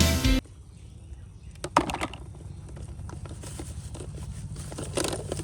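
Guitar background music cuts off abruptly just after the start. Then come a few faint, scattered clicks and taps over a low steady hum.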